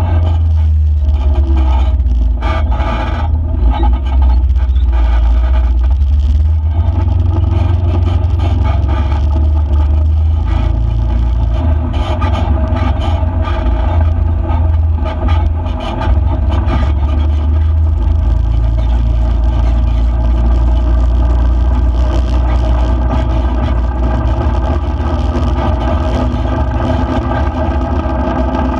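A vehicle driving along a dirt road: its engine running steadily over a heavy low rumble, with scattered crackles and clicks of gravel under the tyres.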